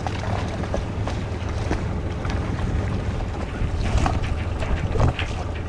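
Wind rumbling on the microphone while water slaps against the hull of a small boat, with short splashes throughout.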